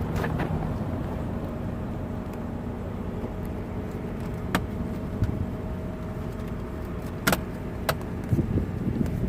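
Scattered sharp clicks and taps of hand tools and trim pieces being worked in a car's centre console, the loudest about seven seconds in and a cluster near the end, over a steady low rumble.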